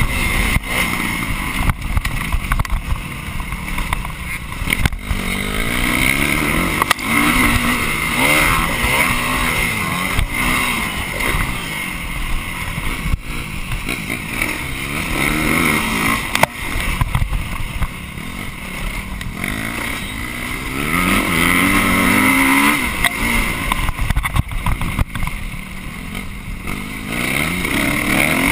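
Dirt bike engine heard from the bike itself while riding a motocross track, its pitch rising and falling over and over as the throttle is opened and closed.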